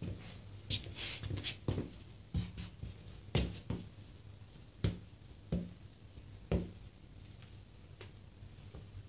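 Nike Air Force 1 sneakers shifting and rocking onto the toes on a tile floor: about a dozen irregular soft taps and scuffs of the rubber soles, some with a short creak.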